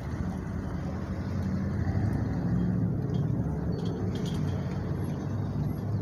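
A motor vehicle's engine running with a low steady hum, growing louder about a second and a half in.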